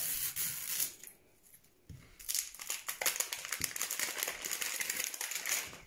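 Plastic wrapper crinkling as the outer layer of a LOL Surprise ball is peeled and torn off by hand. It crackles for about a second, pauses, then crinkles steadily again from about two seconds in until near the end.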